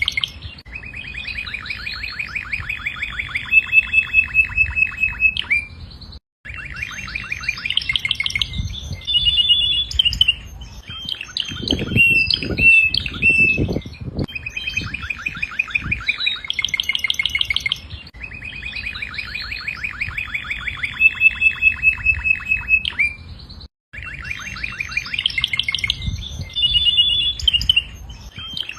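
Domestic canary singing: long phrases of rapid trills and rolls with short whistled notes, the song cutting out abruptly twice. A few low thumps sound near the middle.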